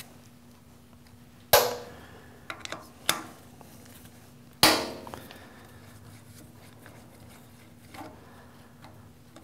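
Hex key clinking and snapping against the steel M6 screws and bracket of a metal lathe as the screws are worked loose. Two sharp, loud metallic clicks come about three seconds apart, with lighter ticks between them and again near the end.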